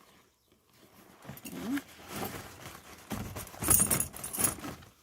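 Handling noise as the traction kit's parts are pulled out of a drawstring duffel bag: rustling fabric and the clinking and rattling of small metal hardware, loudest between about three and four and a half seconds in.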